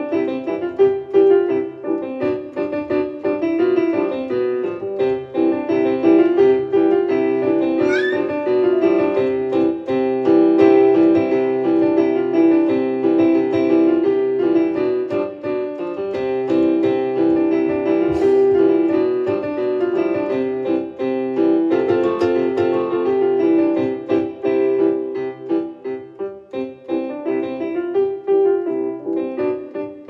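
Solo piano music, a steady stream of notes.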